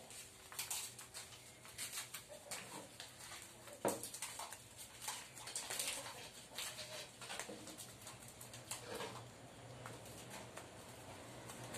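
Resin brush dabbing and stippling into fiberglass mat on a mould: a run of soft, irregular scratchy pats, with a sharper knock about four seconds in.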